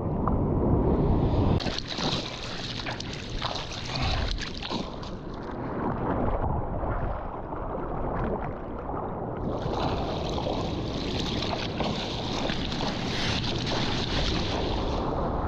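Sea water sloshing and splashing against the microphone over a low wind rumble. A louder hissing rush of surf comes twice: briefly near the start, and again for several seconds from about the middle.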